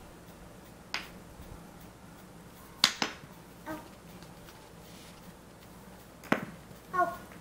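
Wooden alphabet blocks clacking against each other as they are set down and stacked, a handful of sharp knocks, two of them louder, near 3 s and 6 s. Twice, a toddler makes a brief vocal sound.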